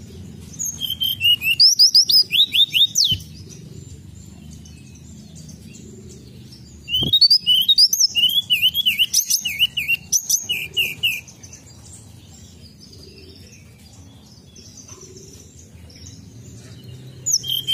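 Hill blue flycatcher (tledekan gunung) singing: two bursts of quick, clear whistled notes, many sliding down in pitch, a few seconds apart.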